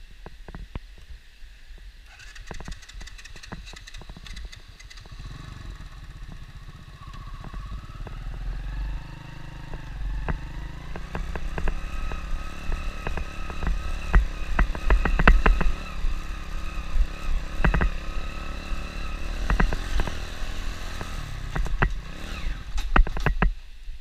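A small motorbike engine comes in about two seconds in and runs as the bike rides along a rough, stony dirt track. Its pitch rises and falls, and frequent clattering knocks come from the rocky surface. It cuts off suddenly just before the end.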